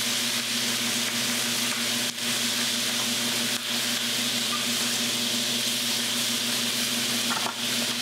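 Chicken pieces searing in hot bacon fat in a frying pan: a steady sizzle, dipping briefly now and then as the pieces are moved with tongs.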